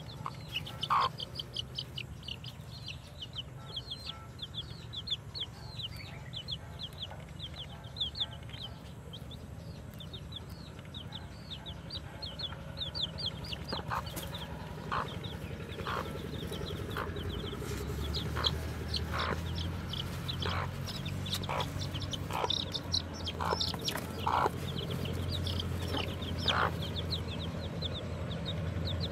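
Newly hatched chicks peeping in quick runs of short, high-pitched cheeps, with a broody hen clucking in short, lower single notes from about halfway through.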